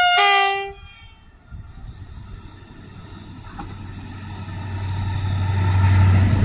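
SNCF diesel locomotive approaching, its engine's low hum growing steadily louder as it nears. A short, loud, harsh call sounds right at the start and stops within a second.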